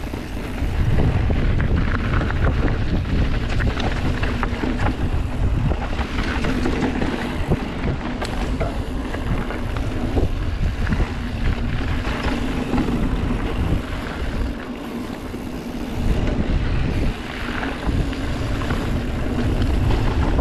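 Mountain bike riding fast down a dirt trail, heard from a GoPro Hero 8 on the bike or rider: wind buffeting the camera microphone with a steady low rumble, over tyre noise and many small clicks and knocks of the bike rattling over the ground. It gets louder about a second in.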